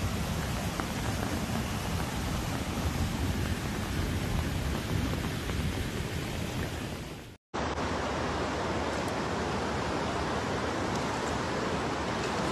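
Fast-flowing floodwater rushing, a steady even noise. It cuts out for an instant about seven seconds in, then a similar rush of water resumes.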